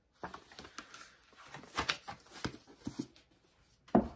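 Paper dust jacket rustling and crinkling as a hardcover book is handled, with a solid thump about four seconds in as the book is set down on a shelf.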